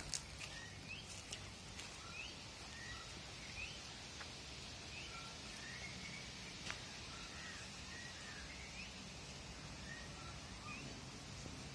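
Birds chirping outdoors: many short, rising calls scattered throughout over a faint steady hiss, with one sharp click about two-thirds of the way through.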